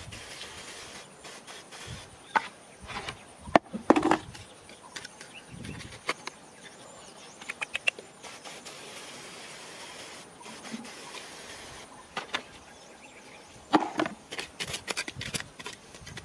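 Hand pump sprayer hissing as it sprays water onto a freshly dug lump, with scattered knocks and scrapes of stones and gravelly soil being handled, and a quick run of scraping from a small hand trowel working the soil near the end.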